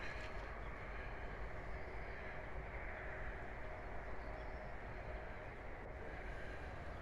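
Steady low outdoor background rumble with a faint constant hum, without distinct separate sounds.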